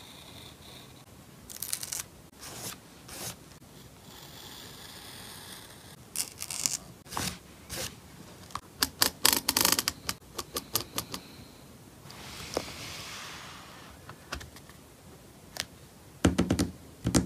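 A pen tip scratching on journal paper for about the first second, then paper being handled: rustling, crinkling and light clicks as the finished journal spread is touched and moved by hand. A few louder knocks come near the end.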